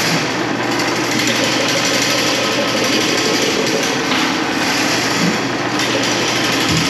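Electric drain-cleaning machine (power drain snake) running steadily while it works a clogged floor drain.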